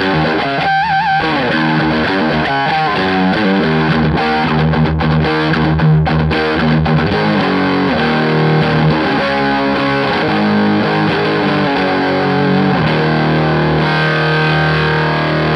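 Overdriven electric guitar from a 1980 Gibson Les Paul, played through a Scarlett Screamer 30 amp into a 2x12 cabinet loaded with British-type Eminence CV75 speakers. It plays rock riffs and lines, with a note held with vibrato about a second in, and a chord left ringing near the end.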